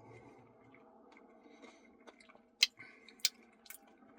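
Quiet chewing and mouth noises of someone eating a Dairy Queen Blizzard, with three sharp clicks in the second half.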